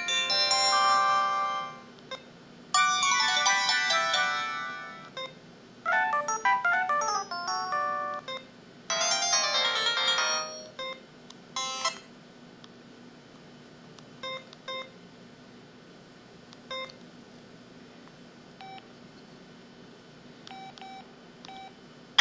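IM-6400 mobile phone playing a run of short melodic alert tones through its small speaker, one after another with brief gaps, followed by a scattering of short single beeps in the second half.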